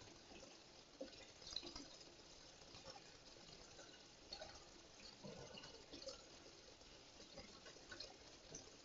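Near silence: a faint steady hiss with scattered soft ticks and clicks.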